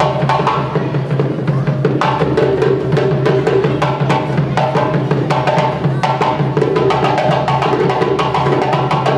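Live West African hand drumming: a djembe and a pair of tall standing drums played together in a fast, steady rhythm of many sharp strikes a second, without a break.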